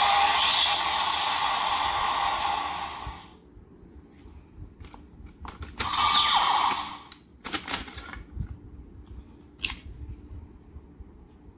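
Bandai DX Shotriser toy gun playing an electronic sound effect through its small speaker, thin and without bass, which cuts off about three seconds in. A shorter burst of the same effect follows a few seconds later, then several sharp plastic clicks as the toy and a Progrise Key are handled.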